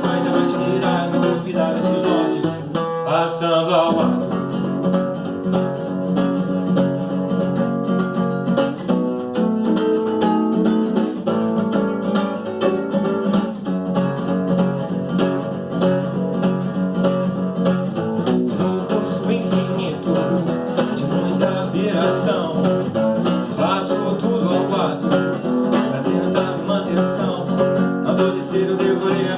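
Background music led by plucked acoustic guitar, in a country or bluegrass style.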